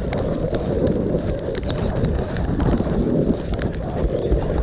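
Rain and wind on a wearable camera's microphone: a dense, rumbling rush with scattered sharp clicks of drops striking it.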